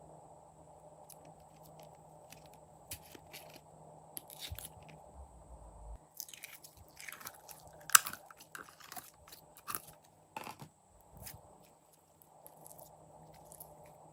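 Clear slime being worked by hand: scattered clicks, pops and crackles, busiest in the middle, with one sharp pop about eight seconds in.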